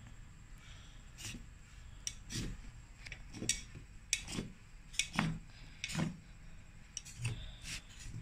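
Kitchen knife cutting slits through rolled dough, its blade tapping and scraping on a plastic cutting board in a series of short strokes.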